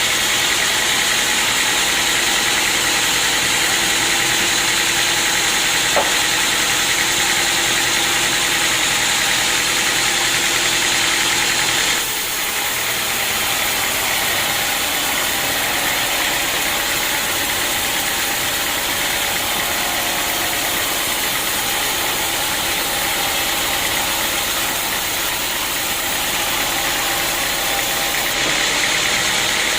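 Sawmill machinery running steadily, a continuous mechanical hum and whine with a single click about six seconds in. The sound shifts abruptly about twelve seconds in, dropping slightly in level.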